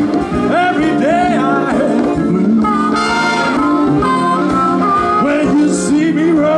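Live band playing a jazz-blues number, with a bending lead line over brass and a rhythm section.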